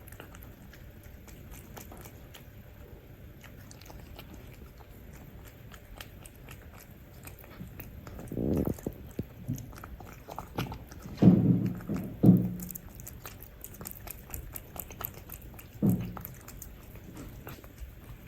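Several cats eating wet canned food from bowls, with close-up wet chewing, licking and small crunching clicks. A few louder dull knocks come in the middle and again near the end.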